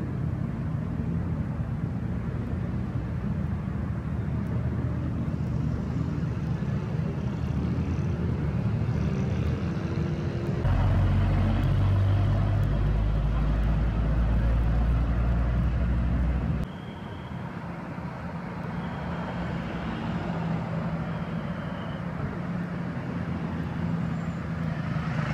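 Heavy diesel trucks' engines running as they drive past, a steady low drone. About ten seconds in it turns suddenly louder and deeper for some six seconds, then drops back just as suddenly.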